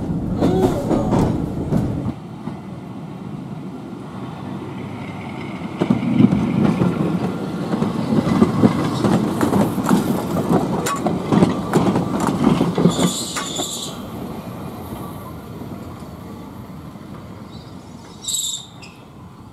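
Blackpool 167, an electric tramcar, running on rails: first a rumble heard from inside the car, then from trackside as it passes close with a louder rumble and repeated clicks of the wheels over the rail. Near the end of the pass there is a brief high wheel squeal, another shorter one later, and the sound fades as the tram moves away.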